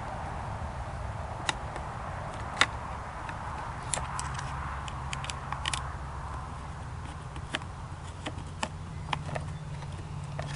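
Irregular sharp clicks and taps of hand tools and metal and plastic parts as the handguards are unbolted from a dirt bike's handlebar, with one louder click about two and a half seconds in and a quick run of clicks around five seconds in, over a steady low background hum.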